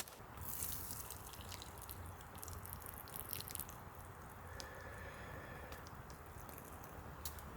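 Steady rain falling, with many drops dripping and ticking.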